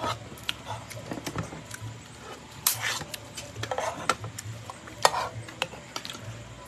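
Scattered light clicks and knocks of a plate and cutlery being handled while eating, with a few short rustling noises about three and five seconds in.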